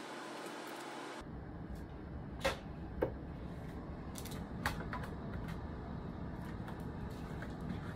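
Steady low room noise with a few sharp clicks and light knocks, the loudest about two and a half and three seconds in; the background changes abruptly from a hiss to a low rumble about a second in.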